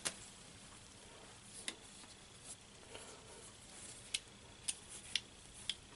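Faint, scattered clicks and taps from a metal gooseneck clamp mount being turned over in the hands, about half a dozen, most in the second half.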